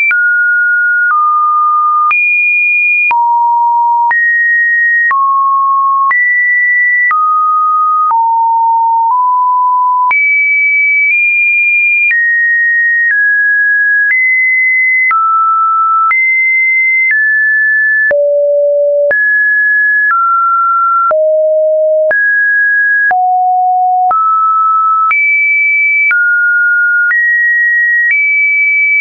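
Computer-generated pure sine-wave tones, one after another with no gaps, each held for about a second before jumping to a new, randomly chosen higher or lower pitch. This is the sound of an automated test video.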